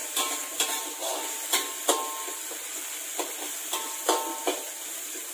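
Metal spatula scraping and knocking against an aluminium wok while onions and curry leaves are stir-fried in oil. Irregular knocks, two or three a second, each leave a brief ringing tone from the wok, over a steady sizzle.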